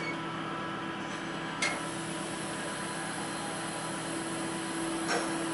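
Linde K10 tri-lateral order picker's electric hydraulic pump running with a steady hum as the tri-lateral head rotates the forks sideways. A sharp click about one and a half seconds in and another near the end.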